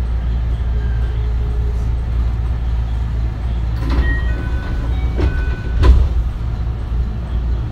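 JR West 221 series electric multiple unit running along the track with a steady low rumble. Around four to six seconds in come three sharp clacks, each followed by a brief high ringing tone, the last one the loudest.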